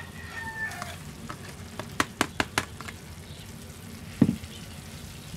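Salsa and onion sizzling in a frying pan as boiled lechuguilla flower buds are tipped in and stirred with a metal spatula. The spatula clicks against the pan four times in quick succession about two seconds in, and knocks once a little after four seconds. A rooster's crow trails off in the first second.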